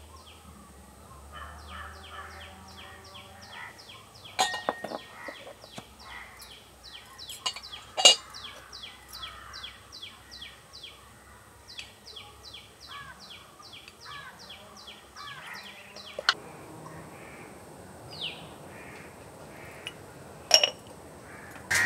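Birds calling: a long, regular series of short high chirps, each falling slightly in pitch, about three a second, stopping about two-thirds of the way through. A few sharp knocks cut in, the loudest about eight seconds in.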